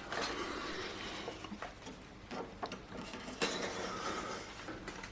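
Scattered light clicks and ticks over a faint hiss as coiled resistance-wire furnace heating elements are handled, stretched and bent.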